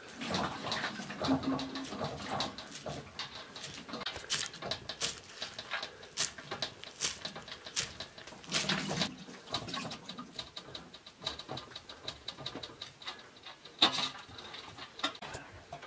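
Knife chopping fresh green herbs on a wooden log chopping block: a run of quick, uneven knife strikes.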